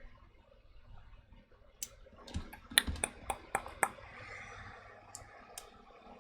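Small LEGO plastic pieces being handled while stickers go on: a quick run of sharp little clicks and taps, bunched about three seconds in, with a faint rustle.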